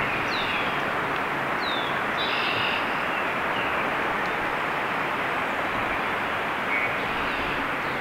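Wild birds calling over a steady rushing background noise: short high chirps that slide downward, three times, and a brief call with a richer, layered tone about two seconds in.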